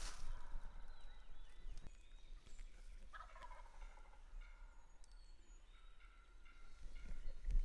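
A wild turkey gobbler gobbling, faint, loudest about three seconds in.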